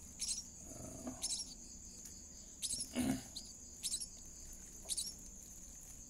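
Steady high drone of night insects such as crickets, with short high chirps about once a second. A single low thump comes about three seconds in.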